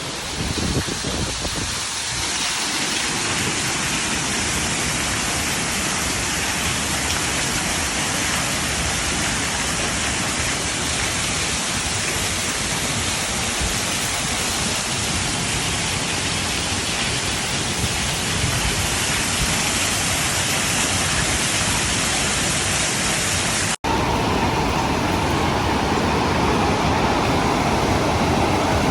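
Waterfall rushing steadily, a dense, even sound of falling water. It cuts out for an instant about 24 seconds in, then carries on with a slightly different tone.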